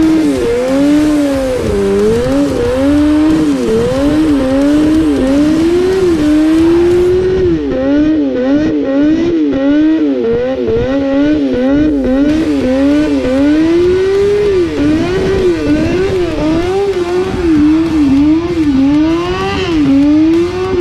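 Vehicle engine revved hard and held at high revs, its pitch rising and falling over and over as the throttle is worked, about once a second.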